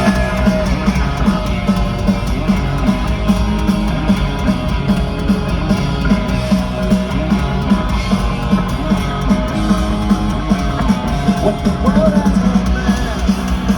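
A punk rock band playing live, with electric guitars to the fore over a steady beat.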